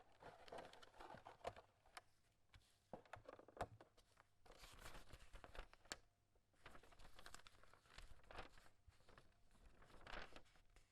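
Faint crinkling and rustling of packaging being handled, in uneven spells with scattered light clicks and knocks.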